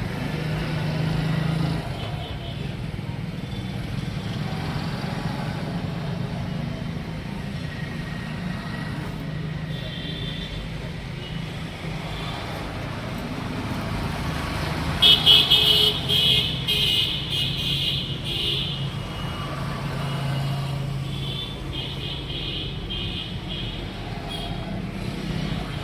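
Steady engine hum and road traffic noise, with louder high-pitched rattling bursts starting about fifteen seconds in and again near the end.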